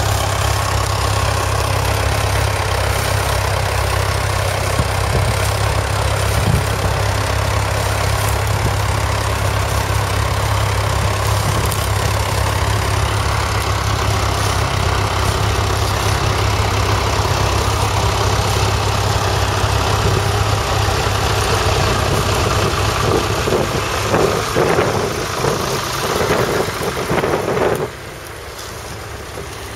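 1964 Fordson Super Major's 3.6-litre four-cylinder diesel running steadily under load while pulling a Ransomes plough, its low, even engine note fading toward the end.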